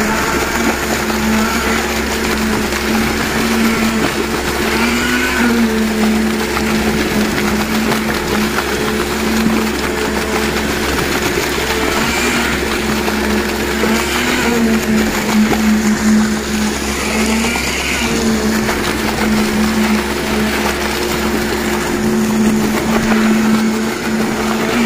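Concrete pump running under load as it pushes concrete out through its end hose: a steady machine drone whose pitch bumps up briefly every few seconds.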